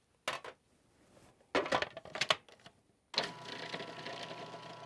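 Short plastic clicks and clatter as the food processor's lid and pusher are put in place, then about three seconds in the food processor's motor starts and runs with a steady hum, whizzing tahini and lemon juice.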